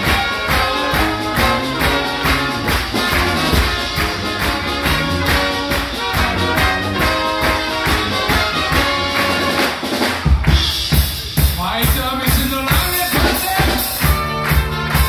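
Live brass band of trumpets, trombone and tuba playing an upbeat party-song medley with a steady beat, a singer on microphone and the crowd clapping along. The bass drops out for a moment about ten seconds in, then comes back strongly.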